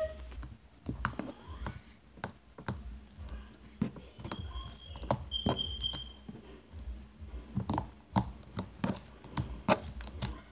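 Hands kneading and poking a lump of homemade slime, making irregular wet clicks and pops.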